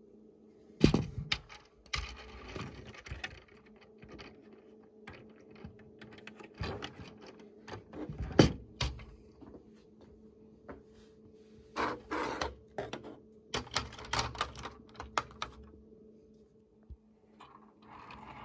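Plastic Lego pieces clicking and knocking as the sections of a Lego airliner model (roof panel and nose) are handled and fitted back together on a wooden table. The clicks come in an irregular run, with a few sharper knocks.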